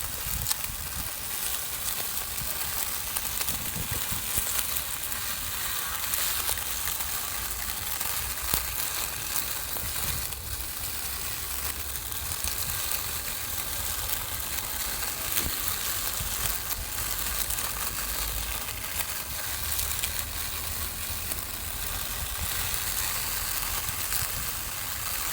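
Small lawn mower running and cutting grass, a steady hissing crackle throughout.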